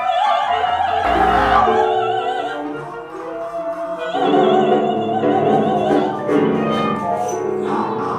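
Music with several parts at once: a high operatic voice singing with wide vibrato over instrumental accompaniment, which grows fuller in the lower range about halfway through.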